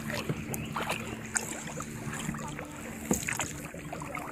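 Two-person kayak being paddled: paddle strokes splashing in the water, with a few short sharp clicks, over a steady low hum.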